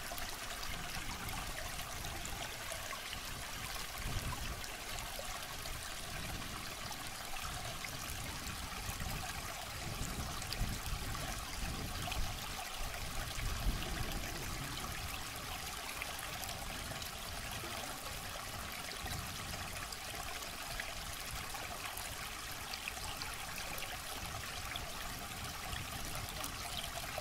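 River rapids rushing over rocks: a steady wash of water noise, with irregular low rumbles in the middle stretch.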